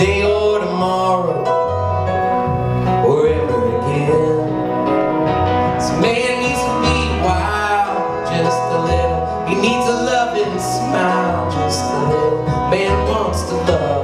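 Live country-folk band playing an instrumental passage between verses: electric and acoustic guitars over upright bass and keyboard, with a moving bass line.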